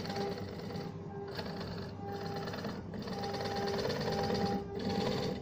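Belt-driven wood lathe turning a wooden blank while a hand-held chisel cuts into it: a rough scraping hiss of the cut that breaks off briefly every two seconds or so, over the steady hum of the electric motor and belt drive.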